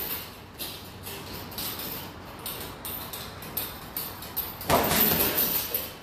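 Boxing gloves punching a chain-hung heavy bag in quick combinations: a string of short thuds and clinks, then a longer, louder burst of hits about five seconds in.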